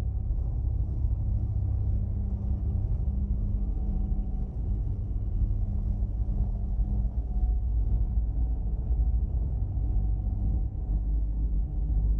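UFO sound effect of a flying saucer hovering: a deep, steady rumbling drone with a low hum running through it.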